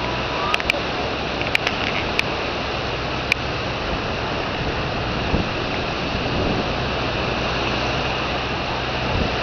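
Steady rushing of small surf breaking on a shallow beach, with wind on the microphone. A few short sharp clicks come in the first few seconds.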